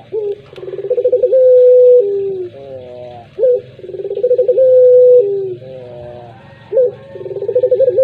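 Puter pelung (Barbary dove) cooing, three repeated phrases: each opens with a sharp rising note, runs into a rolling trill, then holds a long steady note that steps down to a lower, falling note.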